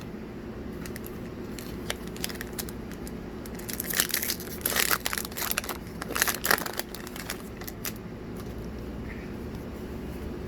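Plastic booster pack wrapper crinkling and tearing as it is opened, a run of crackles that builds to its loudest in the middle and dies away near the end, over a steady background hum.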